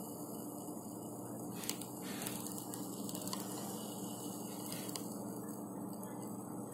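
Steady low hiss with a faint hum, and a few faint clicks about one and a half to two seconds in and again near five seconds.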